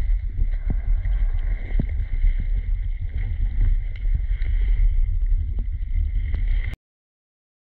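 Underwater sound in a river: a steady low rumble with a thin steady high whine and scattered small clicks. It cuts off abruptly to silence near the end.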